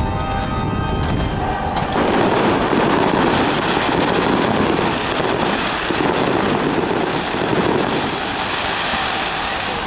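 Fireworks display going off in a dense, continuous barrage of crackling bursts, growing louder about two seconds in.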